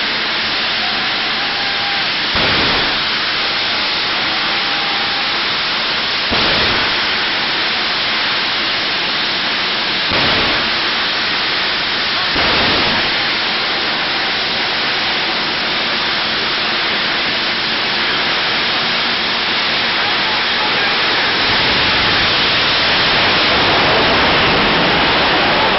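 Race car engine held at high revs with tyres screeching through burnouts and donuts, a dense continuous roar broken by four sudden louder bangs.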